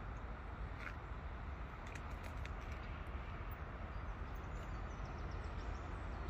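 Outdoor ambience: a steady low rumble, with a few faint short high chirps about a second in and again around two seconds in.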